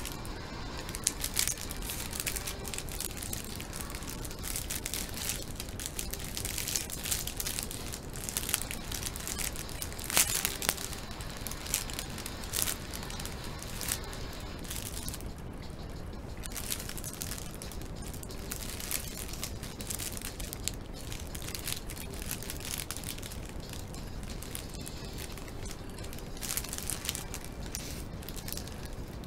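Thin plastic bread bag crinkling and crackling as it is handled and opened, in dense irregular crackles, the sharpest about ten seconds in; the crinkling thins out in the second half.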